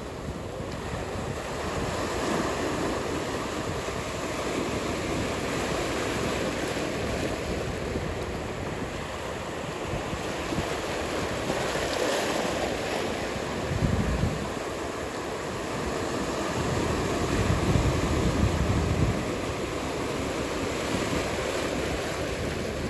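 Ocean surf: a steady wash of breaking waves and whitewater, with wind noise, swelling into heavier low rumbles about two-thirds of the way through.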